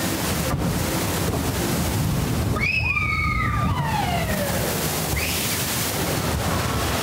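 Water sloshing and rushing around a log flume boat. About three seconds in, a pitched sound glides downward over a second or two.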